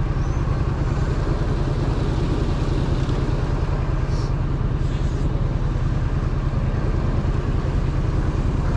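Steady road-traffic noise at a street intersection: motor vehicles running and passing, with a constant heavy low rumble.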